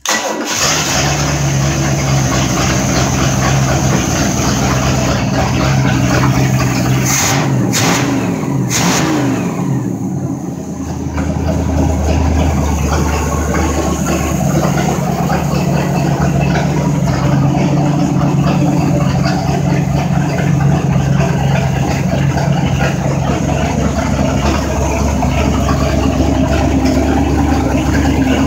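Mercruiser 5.7 V8 marine inboard engine starting and running on a test stand. Its speed rises and falls briefly about eight seconds in, then it settles into a steady idle.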